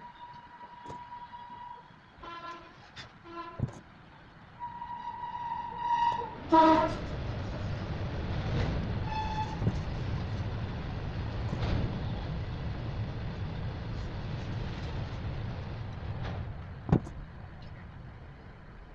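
A horn sounding in several toots, short and long, over the first seven seconds or so, then a loud low rumble of something large passing by that fades out a few seconds before the end.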